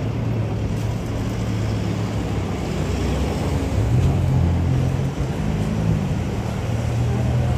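City street traffic: vehicle engines running close by, a steady low hum over a noisy street background.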